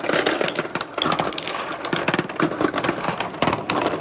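Many hard plastic balls clattering against each other and against a plastic bucket and wooden track: a dense, irregular run of rapid clicks and knocks.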